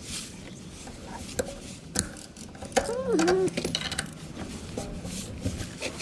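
Scattered metallic clicks and clinks of a wrench working the nuts on an Allis-Chalmers HD6 steering clutch pack. A short vocal sound comes about halfway through.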